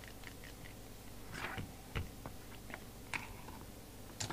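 A handful of faint clicks and light knocks from hands handling an open CB radio: fingers on the front-panel knobs, then a reach into the chassis wiring. A low, steady hum runs underneath.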